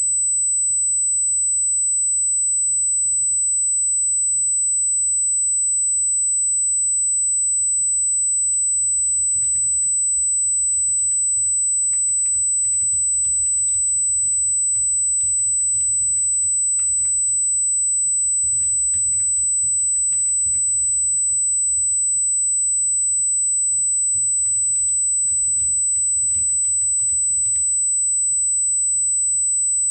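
A steady high-pitched tone runs throughout. Under it, faint irregular clicking like typing on a computer keyboard starts about a quarter of the way in and stops shortly before the end.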